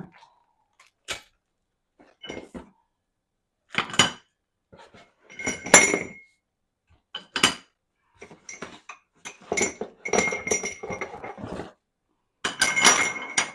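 Metal plant-stand parts clinking and clanking against each other as they are handled and unpacked: separate knocks with a short ring, in clusters, the loudest about six seconds in and near the end.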